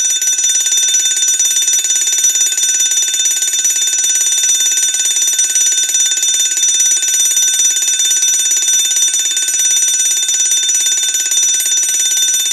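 Fire alarm bell ringing continuously, a rapid, unbroken metallic ring.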